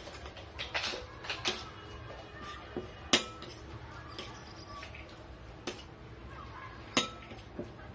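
Metal fork and spoon stirring and scraping sticky banana-and-oat dough in a glass bowl, with sharp clinks of metal against the glass, the loudest about three seconds in and another near seven seconds.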